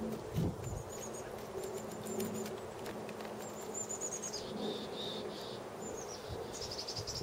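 Outdoor ambience of small birds chirping in short, high, quickly falling trills, with a faint insect buzzing underneath.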